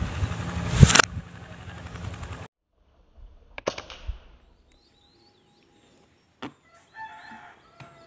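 A pump-up pneumatic air rifle fires once, a sharp crack just under a second in, over steady background noise. After an abrupt cut come a few faint clicks, and near the end small birds chirp briefly.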